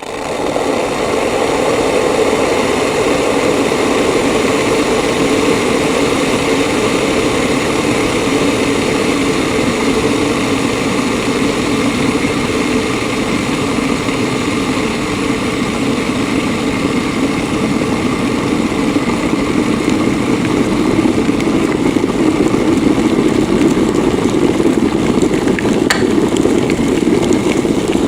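Electric kettle heating water: a steady rushing rumble of the water coming up toward the boil, growing slightly louder in the second half.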